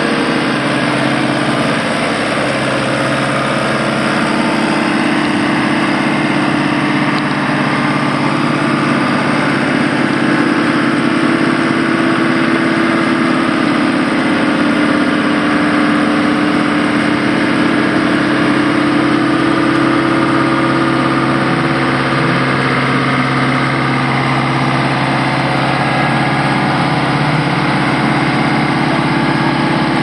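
Diesel engine of a 1992 Vögele Super 1502 wheeled asphalt paver idling steadily.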